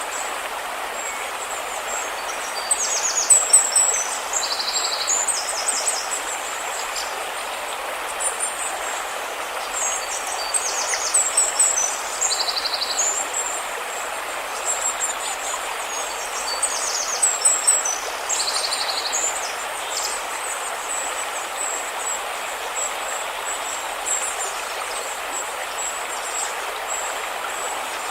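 River water rushing steadily, with small birds singing high, quick chirping and trilled phrases over it, several times in the first two-thirds.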